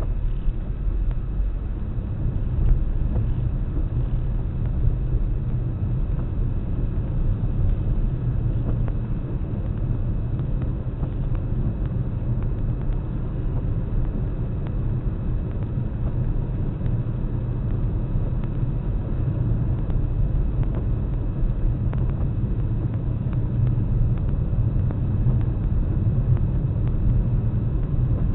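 Steady low rumble of a car on the move, road and engine noise as picked up by an in-car camera.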